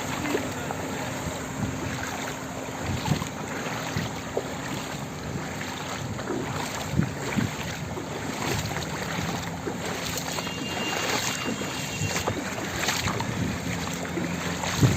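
A vehicle moving slowly through shallow floodwater: water swishing with a steady low engine hum and occasional soft knocks.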